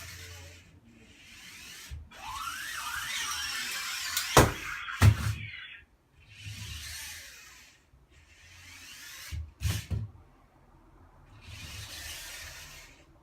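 Parrot Buzz mini drone's motors and propellers whirring in four bursts, the pitch rising and falling as they speed up and slow down. Several sharp loud knocks come about four to five seconds in and again near ten seconds.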